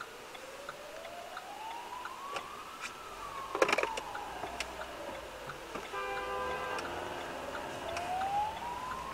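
An emergency vehicle siren wails slowly, its pitch rising for about three seconds and then falling, then rising again near the end. Under it a steady ticking repeats roughly every 0.7 s. There is a sharp thump about three and a half seconds in, and a short steady tone just after the six-second mark.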